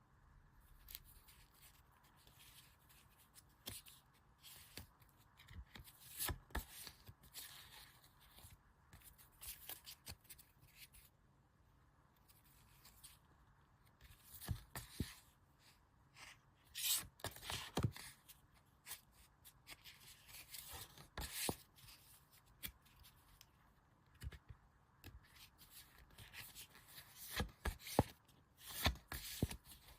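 Hands handling and unwrapping merchandise packaging: irregular rustles, crinkles and light taps of plastic and paper, with louder clusters now and then.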